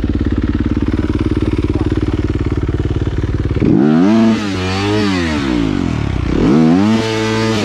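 Dirt bike engine running steadily at low revs, then revved up and back down twice over the last four seconds.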